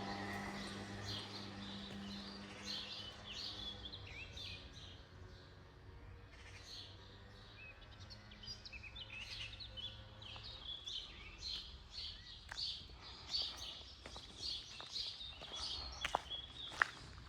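Small birds chirping over and over in short calls, over a low steady hum that fades out about halfway through. A few sharp clicks come near the end.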